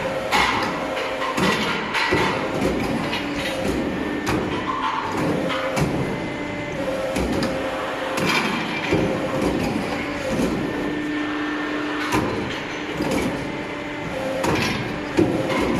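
CNC tube bending machine working a metal tube into a curved chair frame. Its drives whine in steady tones that start and stop as each bend is made, with repeated clacks and knocks from its moving parts.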